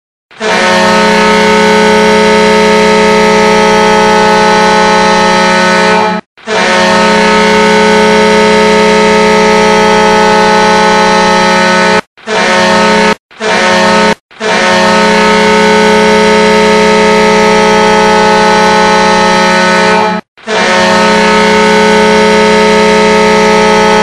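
Custom hockey goal horn blowing a pattern of blasts on one steady, deep pitch: two long blasts of about six seconds each, two short ones, then two more long ones.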